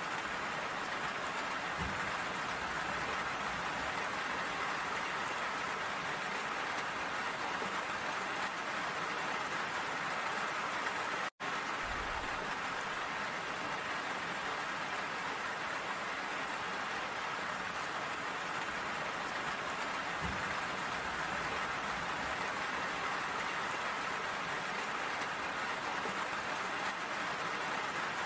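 Steady rain falling, an even hiss with no pauses except a brief cut to silence about eleven seconds in.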